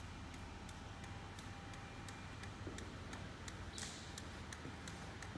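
Turn-signal flasher relay ticking steadily with the hazards on, about three ticks a second, over a low steady hum. A short hiss comes about four seconds in.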